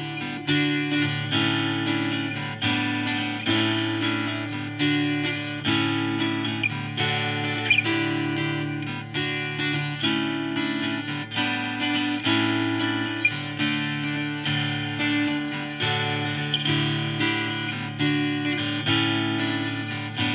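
Intro music: acoustic guitar strummed and plucked at a steady, even pace.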